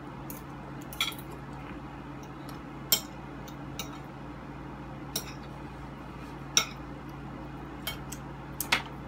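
Spoons and forks clinking against dinner plates while eating, a scatter of sharp separate clinks every second or two over a steady low hum.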